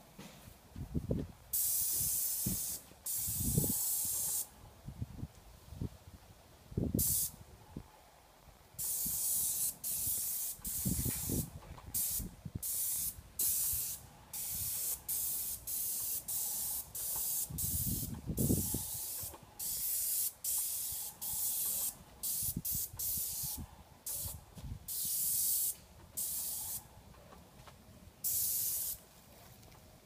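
Airless paint spray gun fed by a Graco 695 sprayer, spraying primer in many on-off bursts of hiss as the trigger is pulled and released, each burst a second or two long with short breaks between. A few low thumps come between the bursts.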